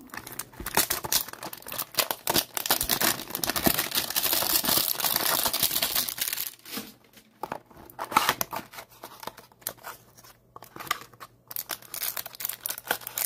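Plastic shrink-wrap being torn off a cardboard trading-card hanger box and crumpled: a dense, continuous crinkling for about six seconds, then sparser crinkles and light clicks as the box is handled and its flap opened.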